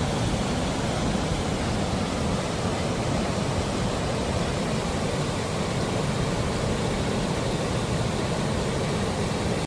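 Steady rush of a fast-flowing river: an even wash of water noise with no distinct splashes or rhythm.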